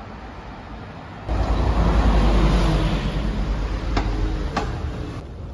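Steady vehicle rumble and hiss that gets suddenly louder about a second in, with two sharp clicks near the end.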